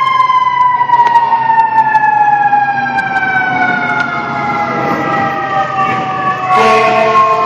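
FDNY fire engine's siren in a long, slowly falling wail after winding up. About six and a half seconds in, a louder blast with a second set of tones cuts in over it.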